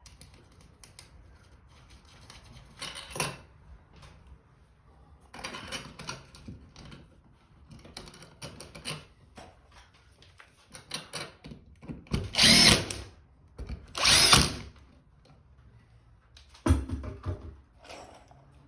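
Cordless drill-driver running in short bursts, driving the screws of a light fixture's mounting bracket. The two longest and loudest runs come about twelve and fourteen seconds in, with shorter runs and light clicks of handling between them.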